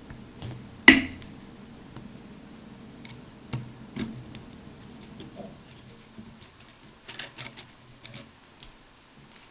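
Small metallic clicks and ticks of an Allen wrench being fitted into and turned in the rib screws on a Browning Buck Mark .22 pistol's barrel. One sharp click about a second in is the loudest, with a few lighter ticks after it and a quick cluster of small ticks near the end.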